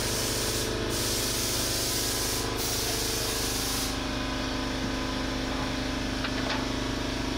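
Steady rushing air hiss over a low machine hum; the hiss drops away about four seconds in. A few faint light taps follow as a clear acrylic panel is set in place on the amplifier rack.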